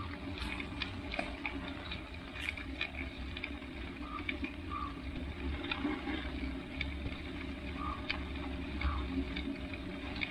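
Bicycle on studded tyres rolling over a snow- and ice-covered road: a steady low rumble with scattered crackling ticks.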